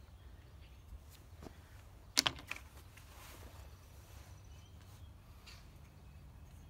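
A few light clicks from a plastic glide disc being handled and fitted into the foot cup of a wrought iron chair, with one sharper click and two quick follow-ups a little over two seconds in.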